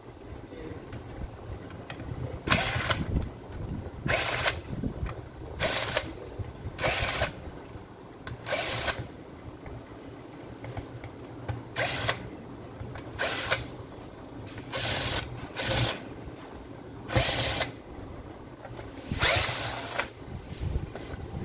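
Makita HP457DWE cordless drill's motor run in about eleven short trigger bursts, each well under a second, with the last one longer.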